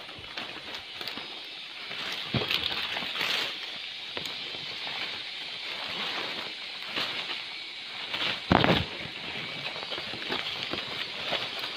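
Climbing noise as a person hauls himself up a tree trunk by its lianas: scraping and rustling of bark, vines and leaves, with irregular crackles and knocks. There is a heavier bump-and-scrape about eight and a half seconds in, over a steady high hiss.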